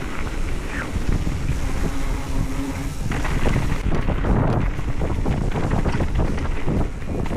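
Wind buffeting the microphone over the rumble of a mountain bike running down a dirt trail, growing rougher with jolts and clatter from about three seconds in.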